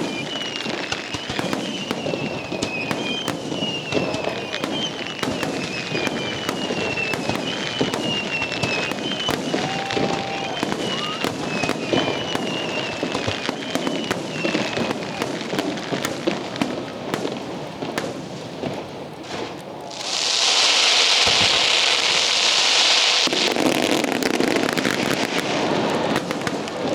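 Fireworks going off with a dense run of crackling bangs, and a repeated falling whistle through the first half. About twenty seconds in, a loud hiss cuts in for around three seconds.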